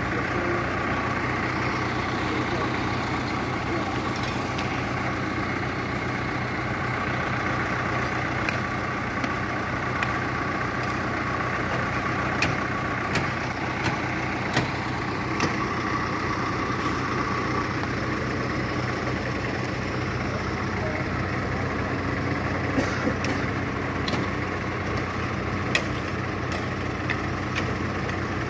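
Light dump truck's diesel engine idling steadily, with scattered sharp clicks and knocks of a metal bar working the stones and gravel around the front wheel.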